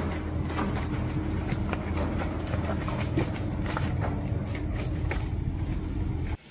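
Heavy truck engine running steadily at low revs, with frequent short clicks and crackles over it.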